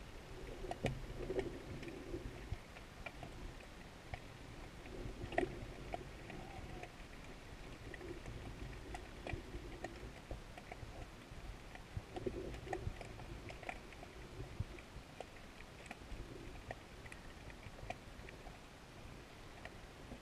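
Muffled underwater ambience heard through a camera's waterproof housing: a low rumble with many scattered clicks and ticks and a few sharper knocks, the strongest about five seconds in.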